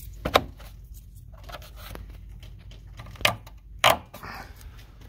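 Plastic trim panel and retainer clips pressed into place by hand, snapping in with three sharp clicks: one just after the start and two more about three seconds in, half a second apart.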